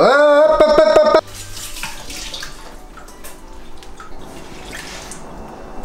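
A loud held note rising in pitch, cut off suddenly just over a second in. After it, a kitchen faucet runs water into the sink.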